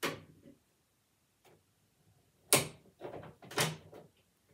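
A few sharp plastic clicks and knocks from a toy dollhouse and its dolls being handled, the loudest about two and a half seconds in.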